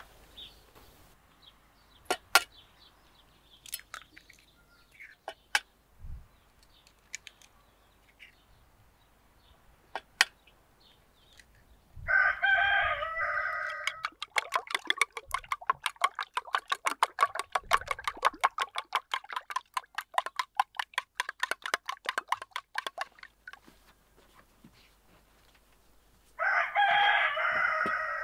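A rooster crows twice, about twelve seconds in and again near the end. Between the crows a spoon beats an egg in a steel pot: fast, even clinking of about six strokes a second for some nine seconds. A few sharp clicks in the first ten seconds.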